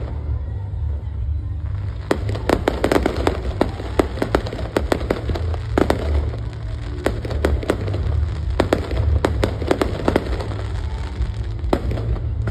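Aerial fireworks going off in a rapid, irregular series of sharp bangs and crackles that start about two seconds in, over a steady low rumble.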